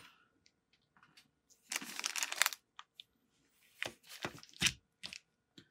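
Plastic packaging crinkling and rustling in a few short bursts as it is handled, with some light clicks between.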